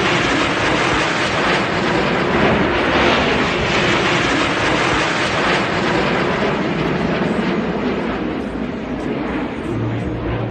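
Formation of CT-114 Tutor jets flying overhead, their turbojet engines giving a steady rushing jet noise.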